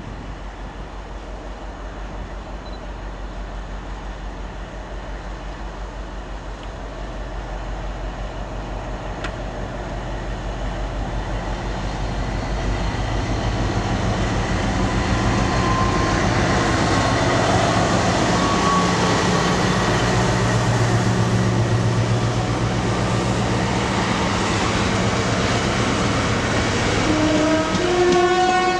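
Class 60 diesel locomotive with an eight-cylinder Mirrlees engine approaching and passing under power, its engine note growing louder over the first half. Then a rake of empty tank wagons rolls by.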